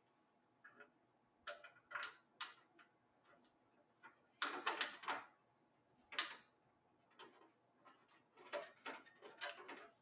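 Scattered light clicks and taps of hands handling a desktop computer's metal case and its screws, with a longer rustle about four and a half seconds in and a run of small clicks near the end.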